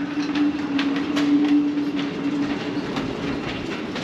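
Marine Travelift 75 BFMII boat hoist running: a steady whine with irregular clicking over it. The whine fades out about three seconds in.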